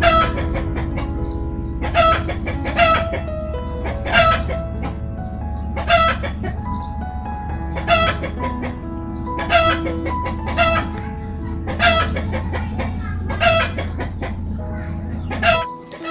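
Chickens clucking, a short call every second or two, over background music of held notes and a low steady drone that stops near the end.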